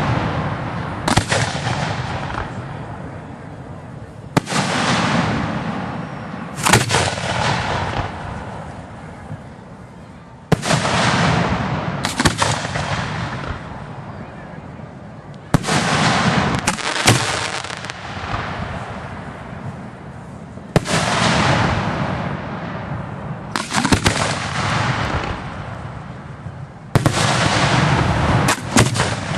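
Aerial firework shells bursting one after another, about eleven in all, every two to four seconds. Each is a sharp bang followed by a rumbling echo that dies away over a few seconds.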